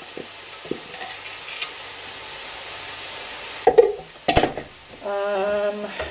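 Breadcrumbs being tipped from a food-processor bowl into a mixing bowl of chopped nuts, a soft steady rustling hiss for about three and a half seconds. Then come sharp knocks as the processor bowl is put down, and near the end a brief steady hum-like tone.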